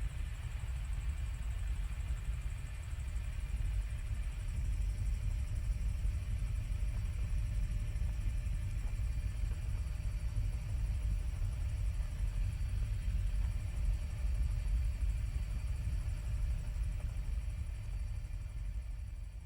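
Helicopter in flight: a steady low rumble with a faint steady high whine above it.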